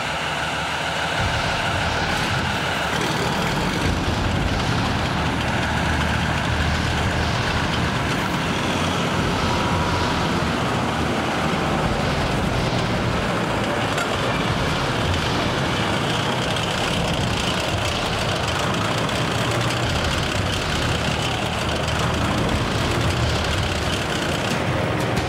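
Tracked armoured vehicle driving, its engine and tracks running steadily, heard from inside the cabin.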